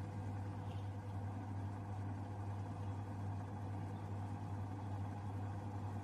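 Washing machine spinning in its spin cycle, the motor giving a steady low hum: the repaired motor now drives the drum in spin.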